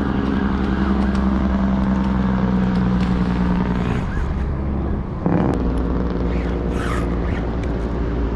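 Motor vehicle engine running with a steady low hum. The hum breaks briefly and shifts about five seconds in.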